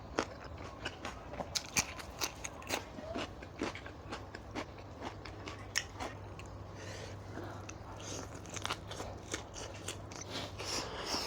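Close-up chewing and crunching of food in a person's mouth. Irregular crisp crunches and small wet clicks come every fraction of a second.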